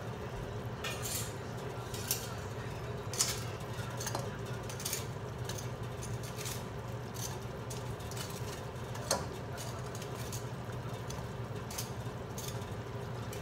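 Sauce simmering in a frying pan over a steady low hum, while fried chicken wings are set into it one by one with tongs, giving scattered light clicks and taps.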